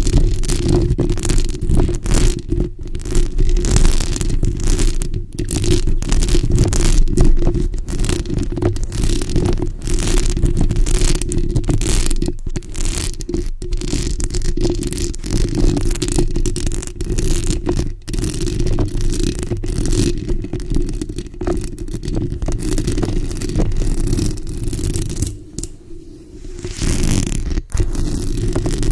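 Long acrylic nails scratching and tapping on a bare microphone's metal mesh grille, close up: a dense run of scrapes and sharp taps over a deep handling rumble. It eases off briefly about 25 seconds in.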